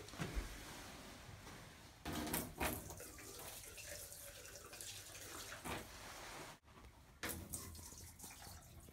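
Liquid sloshing and splashing in a toilet bowl as a jug of RV antifreeze is pushed down into it and squeezed, forcing antifreeze through the toilet's trap to keep it from freezing. A few louder surges stand out against a steady wash.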